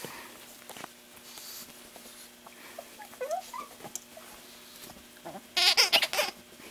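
Plush gecko squeaky toy squeaking as pugs chew and tug at it: a few faint short squeaks about three seconds in, then a loud, rapid run of high squeaks near the end.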